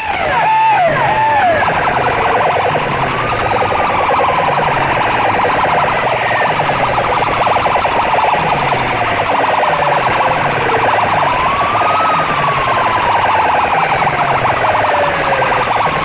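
Electronic siren effect played at full volume through a DJ sound system's bank of horn loudspeakers. It starts as fast swooping wails and settles into long, slow rising and falling glides, over a repeating low bass pulse.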